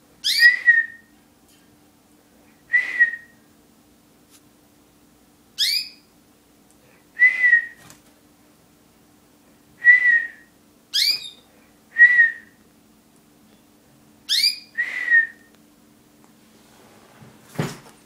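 A person whistling short single notes at caged pet birds, about six times, with a bird answering four times in between with brief, high chirps that sweep sharply upward. A handling bump near the end.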